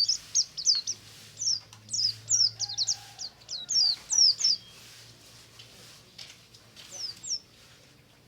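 White-eye (pleci) singing: a fast run of thin, high, downward-slurred chirps for about the first four and a half seconds, then just a couple of notes near the end.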